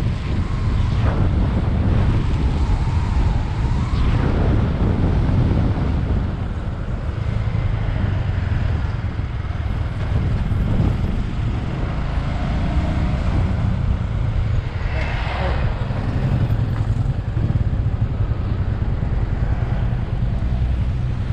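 Motorcycle engine running steadily while riding, most likely the rider's Bajaj Avenger 220, with wind rushing over the microphone.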